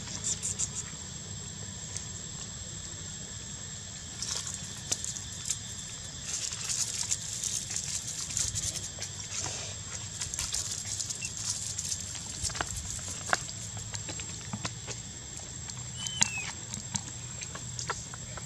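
Soft scattered rustling and small clicks as the baby macaque shifts against its mother's fur on dry ground, busiest in the middle, over a steady high insect whine. A single short squeak or chirp comes near the end.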